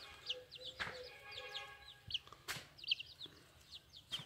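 A flock of young chicks peeping: many short, high cheeps that slide downward in pitch, overlapping steadily. Two sharp clicks stand out, about a second in and two and a half seconds in.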